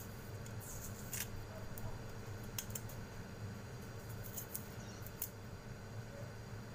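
Scattered light clicks and crackles of garlic cloves being peeled by hand, the papery skins pulled off with the fingers, over a faint steady background hum.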